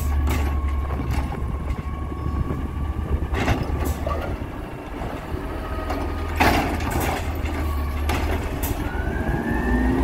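Natural-gas Peterbilt 320 garbage truck running while its Bridgeport Ranger automated side-loader arm lifts a recycling cart and shakes it out into the hopper, with a steady hydraulic whine and sharp knocks of the cart about three and a half and six and a half seconds in. Near the end the engine's pitch rises as the truck starts to pull away.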